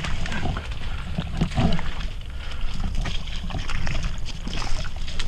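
Footsteps sloshing and squelching through shallow swamp water and mud, with irregular rustles and clicks of brush and gear, over a steady low rumble of wind on the microphone.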